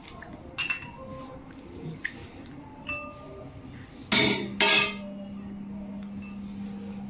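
Kitchenware clinking: a few light clinks with a short ring, then two louder knocks a little past four seconds in. A steady low hum starts with the knocks and carries on.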